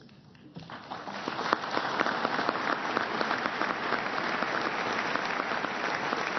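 Audience applauding. After a brief hush, clapping starts about half a second in and builds within a couple of seconds into steady applause.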